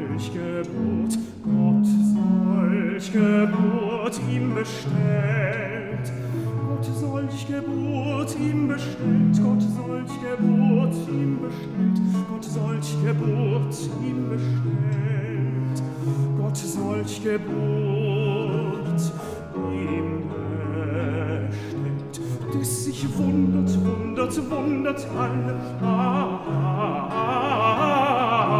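Tenor singing a baroque sacred concerto in German, accompanied by violins and viols da gamba.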